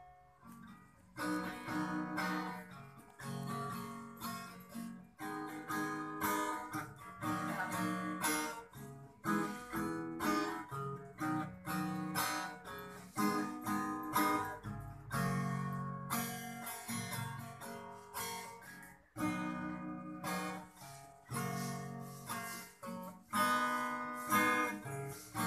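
Background music: acoustic guitar playing, plucked and strummed notes.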